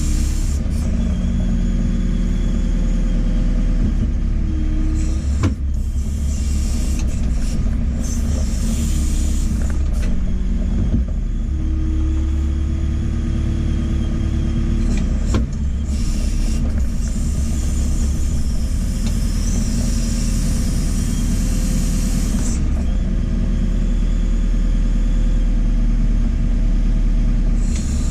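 JCB 4CX backhoe loader's diesel engine running steadily at working speed, with a whine that shifts in pitch several times. Three sharp knocks stand out, a few seconds apart.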